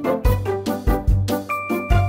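Background music with a steady beat, a bass line and bright instrumental notes.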